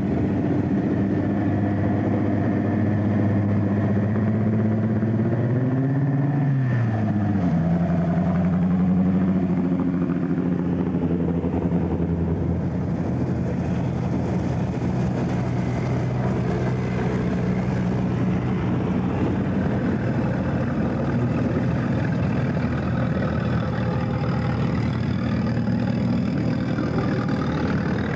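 Formula Offroad car's engine idling, with one short rev that rises and falls about six seconds in, then running steadily again.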